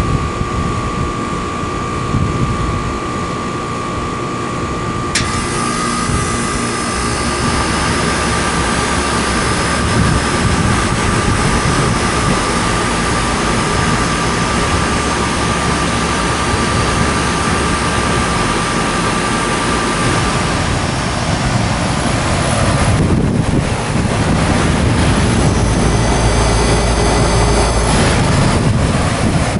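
1995 Carrier 38YKC 1.5-ton heat pump starting up in cool mode and running with a steady mechanical whir and hum. A sharp click comes about five seconds in, after which the running noise fills out.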